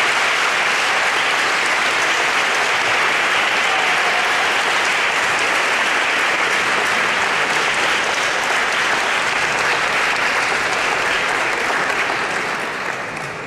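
An audience applauding steadily. The clapping begins to fade near the end.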